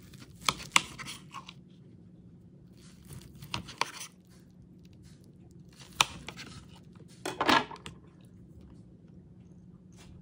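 Serrated knife sawing through a baked meatloaf in a few short bouts of scraping strokes, with sharp clicks where the blade knocks against the plate.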